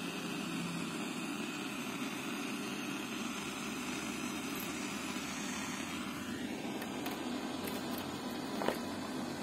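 Steady hiss of untuned FM radio static played through the MZ M423SP soundbar's speakers after it switches to FM mode with no station tuned. A single light click comes near the end.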